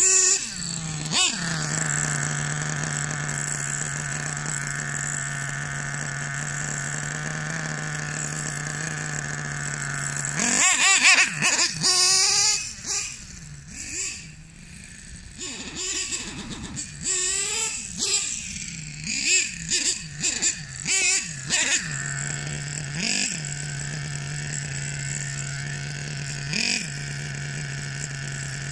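Hobao Hyper 30 Turbo two-stroke nitro glow engine of an RC monster truck, running steadily at a constant pitch. About ten seconds in it is revved in a string of short bursts that rise and fall in pitch, with a dip in between, then it settles back to the steady note with a couple of brief blips near the end. The owner says the engine runs rough and keeps bogging and needs further tuning.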